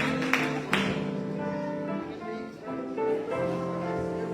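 Instrumental music with held keyboard chords, and a few sharp hits in the first second.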